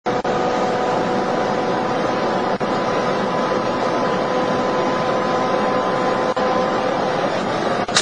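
Car cabin at very high speed: a loud, steady rush of wind and road noise with a steady hum of several held tones. Just before the end, one sharp crack as a bird strikes the windscreen and shatters it.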